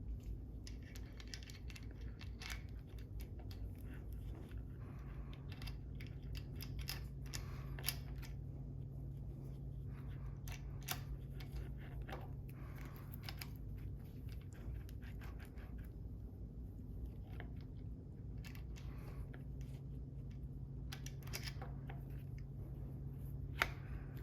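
Scattered small clicks, taps and scrapes of parts and tools being handled, over a steady low hum.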